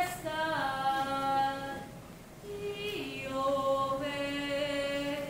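Unaccompanied voice singing slow, long-held notes that step down in pitch, in two phrases with a short break about two seconds in.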